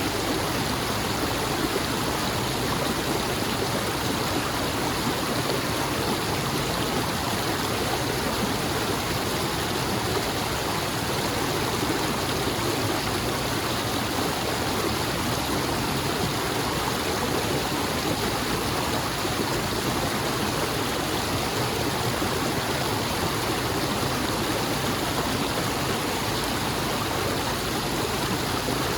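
Flowing stream water, a steady even rush of running water.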